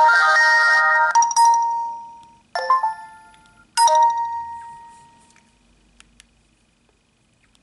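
Nokia 2720 Flip previewing its notice alert tones through its own speaker as each is highlighted in the menu: four short electronic chimes one after another, the last ringing out until about five seconds in. Two faint clicks follow about six seconds in.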